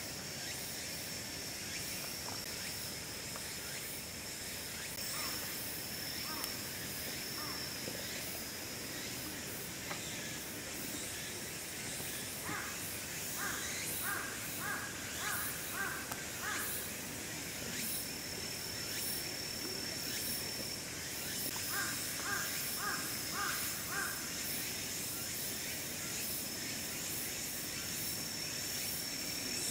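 A crow cawing in two runs, about six caws around the middle and about five more a little later, roughly two a second, over steady outdoor background hiss and a thin high continuous tone.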